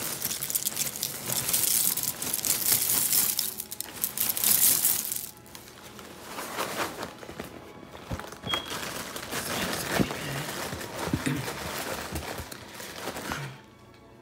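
Plastic inner bag of a cereal box crinkling as it is handled, loud for about the first five seconds. After that come quieter scattered rustles and a few sharp taps as the cardboard box is moved about.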